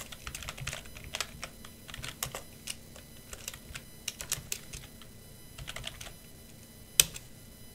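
Typing on a computer keyboard: irregular runs of key clicks, with one much harder keystroke about seven seconds in.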